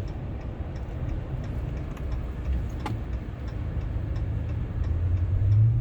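Cabin noise in a 2019 Ram 1500 pickup taking a turn: steady engine and road rumble with faint, evenly spaced ticking and one sharp click about three seconds in. The engine note grows louder near the end as the truck starts to accelerate out of the turn.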